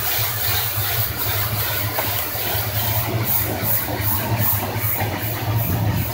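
Pressure washer running: a steady motor hum under the hiss of the water jet blasting the concrete pool floor. In the second half the hiss pulses rhythmically, about three times a second.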